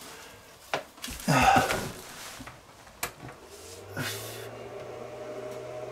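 A few clicks and a short loud breathy noise, then about four seconds in the small cooling fan inside a DIY solar power box starts up and runs with a steady low hum.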